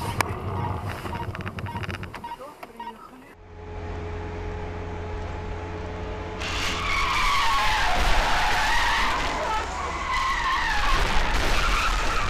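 Dashcam audio: a car engine and road noise drone steadily, then from about six and a half seconds a long, wavering tyre squeal from a skidding car runs on while a car loses control and tips over.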